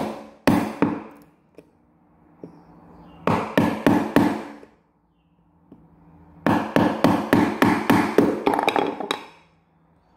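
Hammer tapping a steel wood chisel into a wooden carpet tack strip, chopping either side of a nail to cut the strip free. Light, quick blows come in three runs: a few just after the start, about six around three to four seconds in, and about a dozen at roughly four a second from six to nine seconds in.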